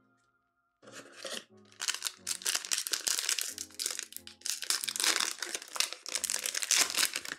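A foil trading-card pack wrapper being torn open and crinkled by hand. The crackling starts about a second in and runs on densely, over background music.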